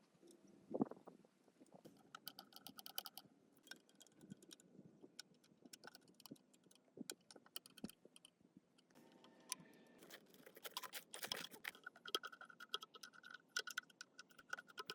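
Small metal parts and hand tools clicking and ticking during hands-on repair work. There are scattered taps and two runs of rapid ticking, one about two seconds in and a longer one from about eleven seconds in.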